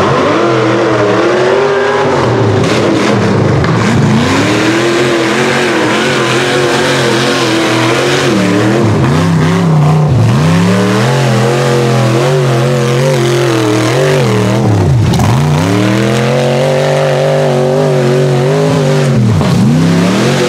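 Rock bouncer buggy's engine revving hard under load as it climbs a dirt hill. The pitch surges up and drops back over and over, with sharp dips where the throttle is chopped, the deepest about fifteen seconds in.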